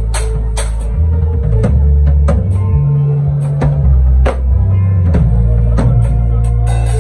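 Drum kit played live over a backing of low, sustained bass notes that shift pitch every second or so: scattered cymbal crashes and drum strokes, about a dozen, at uneven spacing.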